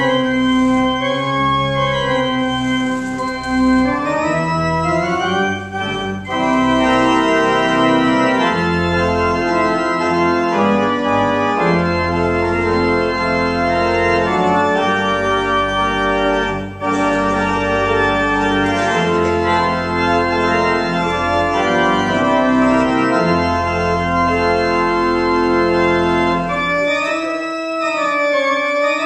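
Church organ playing sustained full chords, with deep pedal bass notes under much of the passage. Near the end the bass drops out and the higher notes take on a slow waver.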